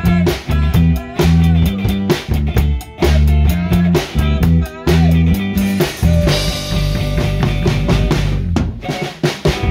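A man singing a song in Greenlandic while strumming an acoustic guitar, with a drum beat keeping time.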